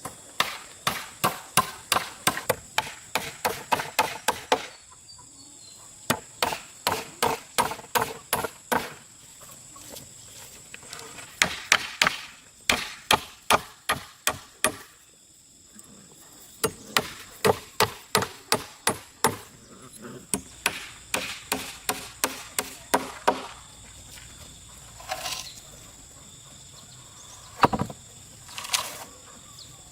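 A hand tool striking wood in quick runs, about three to four blows a second, with short pauses between runs and a few separate knocks near the end.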